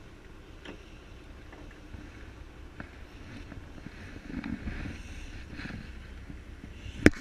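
Steady wind and low rumble on the deck of a fishing boat, with a few faint clicks and a single sharp knock near the end.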